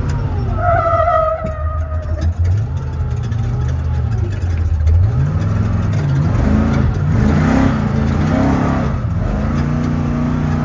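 Truck engine running under way, heard from inside the cab with road and tyre noise; in the second half its pitch rises and falls several times as the throttle comes on and off. A brief high whine sounds about a second in.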